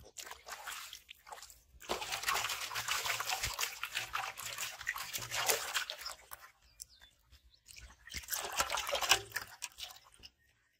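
Freshly caught fish, a catfish among them, thrashing and splashing in shallow water in a metal basin. There is a long spell of splashing from about two seconds in and a shorter one near the end.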